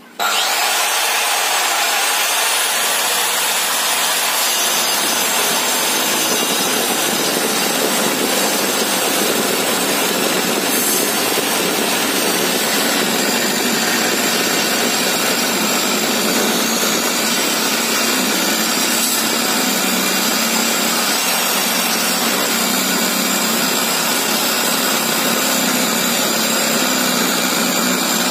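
Uchiha UC 255 900-watt circular saw, fitted with a 7¼-inch 60-tooth Bosch blade, switched on with a rising whine and then ripping lengthwise through a 2-inch-thick wooden beam. The cutting noise is loud and steady throughout.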